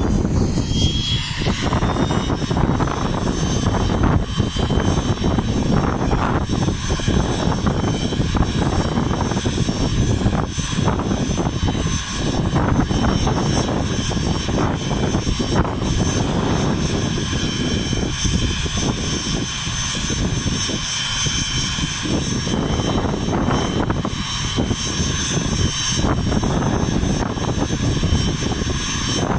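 Airplane engine noise, loud and steady throughout, with a few faint high tones over a heavy low rumble.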